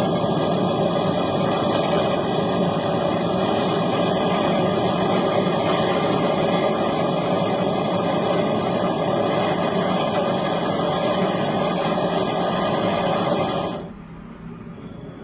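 A steady mechanical running noise with a constant hum, which cuts off suddenly near the end.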